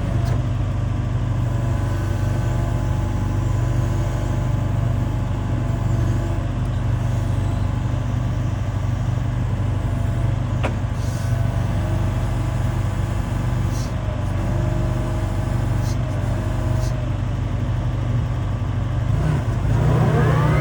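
Hitachi ZX170W-5B wheeled excavator's diesel engine running steadily. Near the end its pitch rises in a climbing whine as the engine speeds up.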